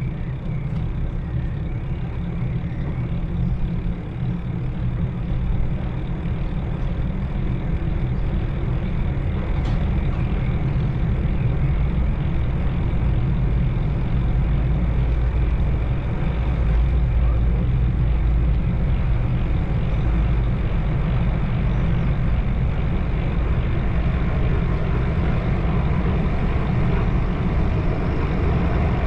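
Steady low rumble of a motor vehicle on the move, engine and road noise, growing slightly louder after the first few seconds.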